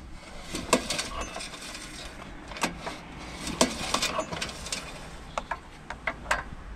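Recoil pull-start of an OHV 400 lawn mower engine being worked by hand, its pull cord drawn out and let back into the housing, with irregular clicks and light knocks from the starter housing and handle.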